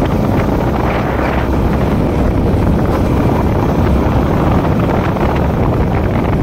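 Yamaha MT-15's single-cylinder engine running steadily while the bike is ridden along the street, under heavy wind rush on the microphone.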